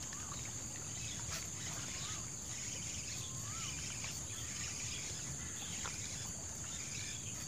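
Steady, continuous high-pitched insect drone, with three short bird notes in the first few seconds.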